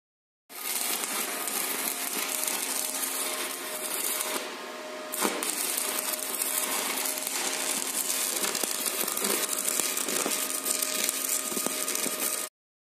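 Stick (MMA) welding arc from a Fubag IR-200 welding inverter, crackling and hissing steadily with a steady tone running underneath. The crackle sags for about a second around four seconds in, then a sharp crack as it picks back up. It starts abruptly and cuts off abruptly near the end.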